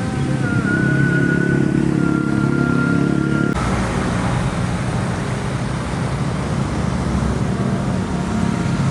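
Road traffic: cars and motorcycles running through an intersection. A thin steady high tone over the first three and a half seconds cuts off abruptly, leaving an even traffic noise.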